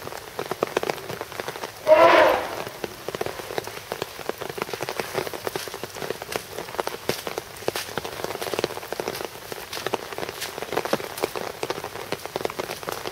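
Steady rain falling on a wet concrete floor and puddles, with a dense patter of drops. About two seconds in, a single short, loud pitched call cuts through the rain.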